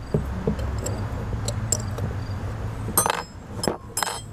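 Metal hand tools clinking against each other and the steering box: light taps, then two sharp clinks about three and four seconds in, over a steady low rumble.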